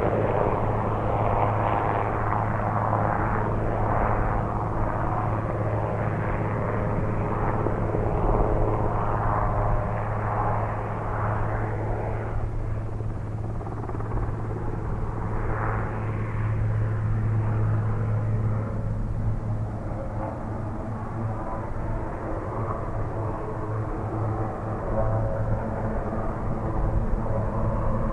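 Sikorsky S-61A heavy helicopter flying, a steady drone of rotors and twin turboshaft engines with a strong low hum; it fades a little in the middle and grows louder again near the end.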